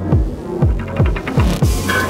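Electronic music: a steady, deep kick drum, about three beats a second with each hit dropping in pitch, and a hissing synth layer coming in near the end.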